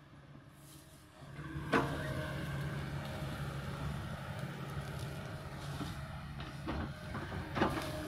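Kobelco excavator's diesel engine rising from a low idle to a steady working run about a second in, with two sharp knocks from the bucket striking the hillside, one just under two seconds in and one near the end.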